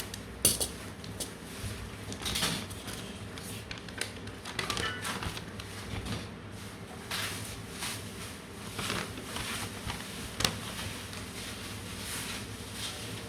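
Handling noise: scattered clicks, knocks and rustles, with a sharper knock about half a second in and another near ten and a half seconds.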